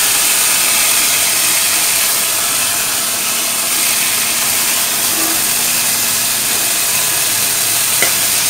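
Oil sizzling in a hot karai under whole eggplants being pan-roasted: a steady hiss, with a light tap of the spatula near the end.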